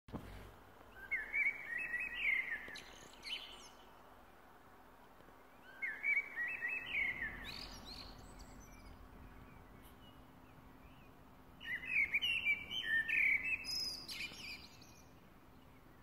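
A songbird singing three separate phrases with pauses between them, each a lower warble that breaks into a high twitter, over a faint steady background hum.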